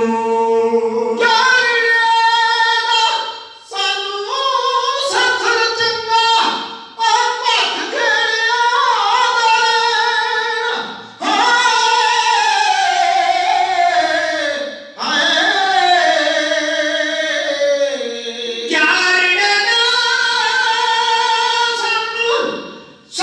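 Punjabi kavishari singing: men's voices singing loudly in high, long-drawn, wavering lines into microphones, in several long phrases with brief breaks between them.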